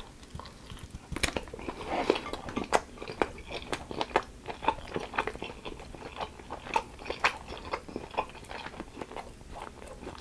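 Close-miked chewing and biting of a bone-in chicken wing: irregular crisp clicks and crunches as the meat is bitten and pulled off the bone and chewed.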